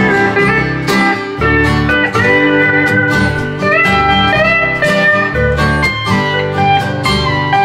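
Pedal steel guitar playing an instrumental solo, its notes gliding and bending from pitch to pitch, over bass guitar and guitar in an alt-country/folk band.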